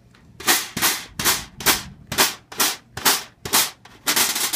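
Snare wires rasping against the drum's bottom head in a run of short strokes, about two to three a second, as the snare strainer's tension is taken up and the wires are tested for firmness.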